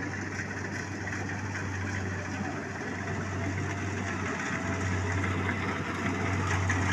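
Rice combine harvester engine running steadily with a low hum and mechanical noise, growing slightly louder over the few seconds.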